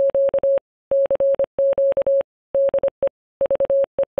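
Morse code (CW) sent as one steady mid-pitched beep, keyed on and off in short and long elements grouped into characters with short pauses between.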